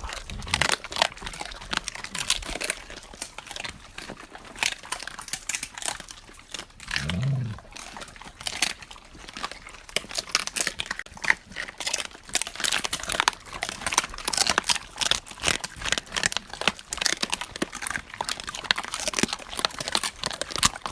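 Dogs gnawing and crunching beef thigh bones close to the microphone: a dense, irregular run of sharp cracks, crunches and scraping tooth-on-bone clicks. A brief low pitched sound comes about seven seconds in.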